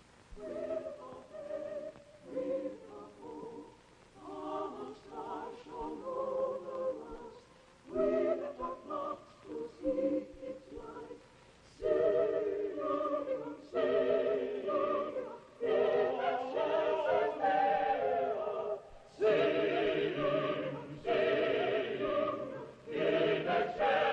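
A choir singing in phrases, soft at first and swelling louder about halfway through.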